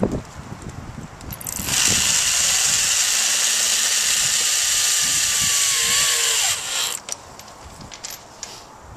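Power drill driving a screw through plastic mesh into a plastic barrel lid. The drill runs steadily for about five seconds, starting a couple of seconds in, then stops.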